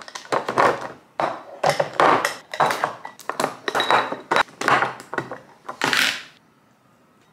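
Glass meal-prep containers and their clip-on plastic lids clinking and knocking on a stone worktop as they are handled, with a spoon scraping against the glass as oats are spooned in. It is a quick run of sharp clatters, some with a brief glassy ring, and it stops about six seconds in.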